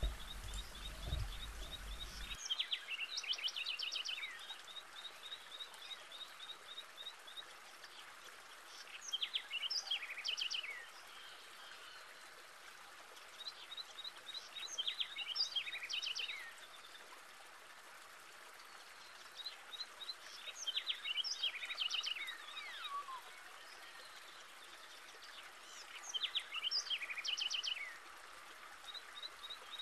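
A songbird singing the same short phrase about every six seconds, each a quick run of high notes ending in a flourish, over a steady background hiss.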